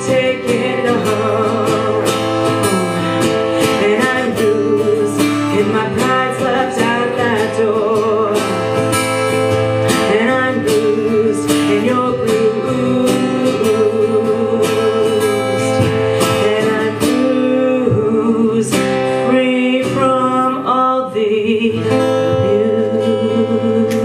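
Live acoustic guitar strumming steadily under a singer's wavering, sustained vocal line.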